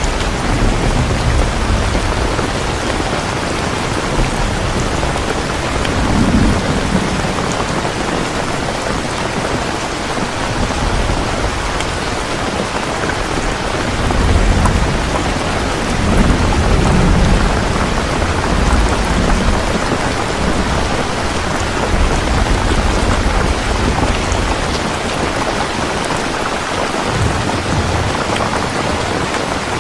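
Heavy rain falling steadily, with low rolling thunder rumbling at the start, again through the middle, and briefly near the end.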